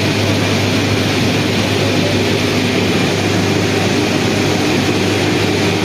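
Industrial air compressor running, a loud steady drone with a strong low hum that holds unchanged throughout.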